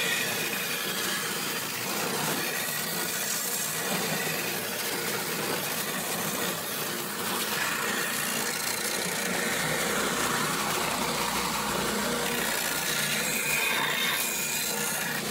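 Benchtop oscillating belt sander running steadily while the mahogany body of a Gibson SG is pressed against the belt, sanding its contours.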